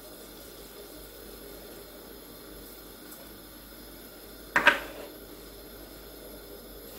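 A single short clink of kitchen ware, a spoon or glass being set down, about four and a half seconds in, over a faint steady hiss.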